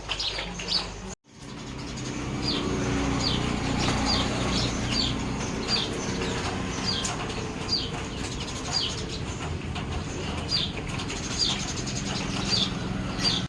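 A single-cylinder motorcycle engine running steadily, picking up a little over the first few seconds after a sudden cut, with birds chirping about once a second.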